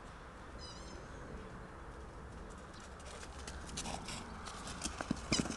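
Footsteps crunching in snow, a quick irregular patter that builds up toward the end and is loudest in a few heavier steps just before it stops. A short high chirp comes about half a second in.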